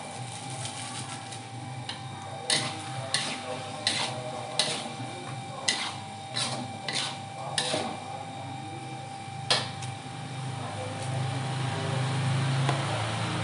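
Kitchen utensils knocking: about nine sharp, irregular clacks spread over several seconds, over a steady low hum.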